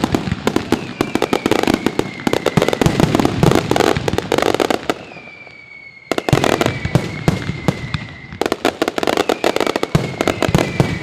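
Mascletà firecrackers going off in dense, rapid strings of loud bangs, with a high whistle sliding slowly down in pitch. The bangs thin out about five seconds in, stop for a moment, then break out again in a fresh burst.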